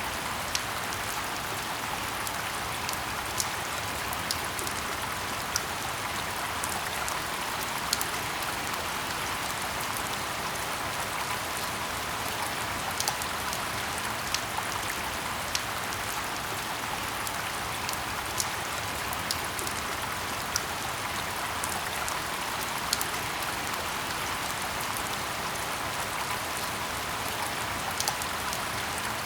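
Steady rain falling in a forest: a dense, even hiss, with individual close drops landing as sharp ticks every second or so.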